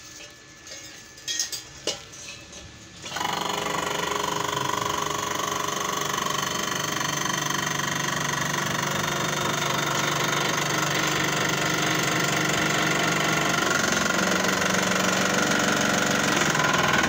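Homemade electric hydraulic press, a 12-tonne car bottle jack driven by an electric motor, starts about three seconds in and runs steadily, pushing the ram down on the steel sections. Its tone shifts slightly near the end. Before it starts there are a few light metal clicks.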